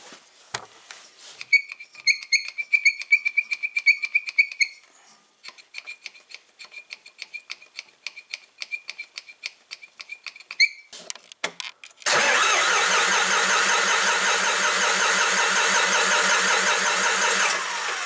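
John Deere 5400 tractor's diesel engine cranked by its starter for about five and a half seconds without catching, then cut off. The fuel system has air in it after a fuel filter change. Before that, a long run of rapid, squeaky clicks from the hand primer pump on the fuel filter housing being worked.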